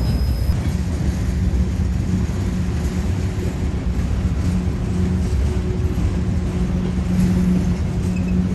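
A train running by, a steady low rumble with a droning engine tone that comes and goes.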